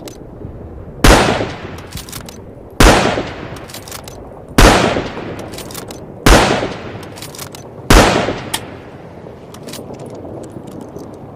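Lee-Enfield No. 4 Mk I bolt-action .303 rifle fired five times, roughly one shot every 1.7 seconds, each shot trailing off in a long echo. Small sharp clicks, the bolt being worked, come between the shots and after the last.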